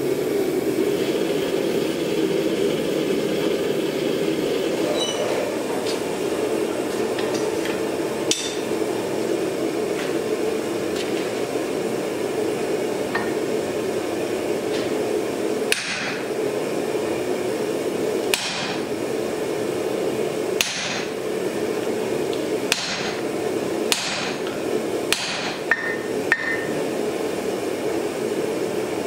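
A hand hammer strikes a handled top tool laid on hot wrought iron on the anvil. The blows come from about halfway through, roughly one every one to two seconds, a few closer together near the end. A steady roar from the lit gas forge runs underneath.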